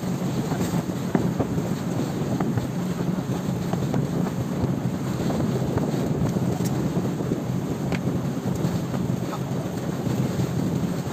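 Motorized outrigger boat's engine running steadily as the boat moves through choppy water, with wind buffeting the microphone and water rushing along the hull.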